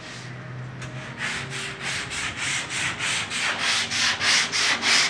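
Hand sanding block rubbing down white body filler on the steel rear fender of a 1950 Studebaker pickup. Quick, even back-and-forth strokes start about a second in, about three a second, and grow louder.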